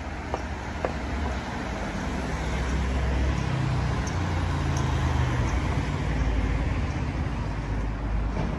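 Road traffic passing along a town street, with a motor scooter's engine going by close and its rumble building and holding through the middle before easing a little.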